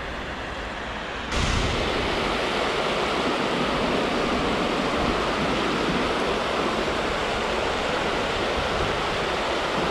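Water rushing steadily over a low weir, a continuous rush that comes in abruptly about a second in, after a quieter stretch of faint outdoor noise.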